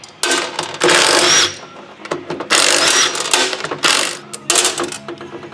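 Ratchet wrench clicking in several quick runs, each under a second long, as the cylinder head bolts are loosened on a Yamaha YZ250 two-stroke.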